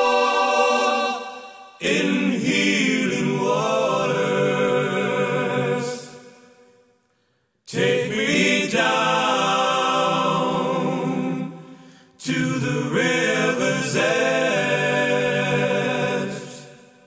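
Background music: slow singing voices in long held phrases, each fading out, with a short silence about seven seconds in and another near the end.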